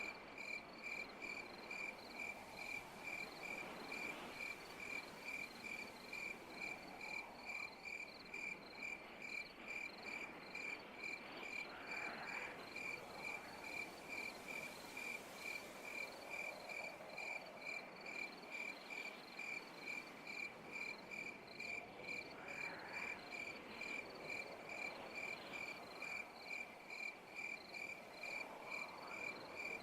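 A cricket chirping steadily in an even rhythm of about three high-pitched chirps a second, over a faint background hum of other night insects.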